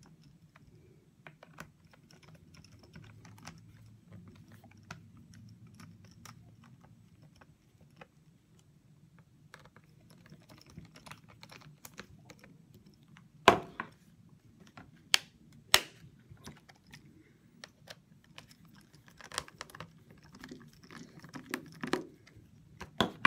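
Screwdriver driving the bottom-cover screws of a Lenovo ThinkPad T450 laptop: light, scattered clicks and ticks of the bit and screws in the plastic case, with three louder sharp knocks around the middle, over a low steady hum.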